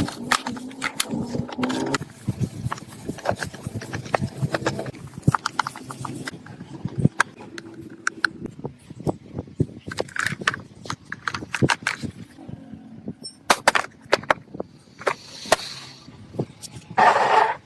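Irregular clicks and knocks, with a brief hiss near the end and a short louder noisy burst just before it stops.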